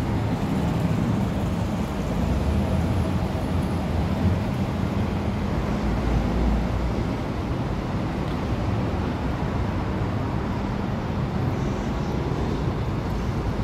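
Steady low rumble and hiss of street traffic.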